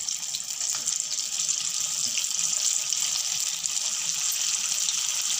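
Cabbage manchurian balls deep-frying in hot oil in a kadhai: a steady sizzling hiss with small crackles.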